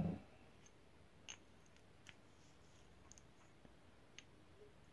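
Near silence with a few faint, separate clicks and taps of small metal hub parts, the internal gears of a Shimano 3CC three-speed hub, being handled; a short clatter dies away right at the start.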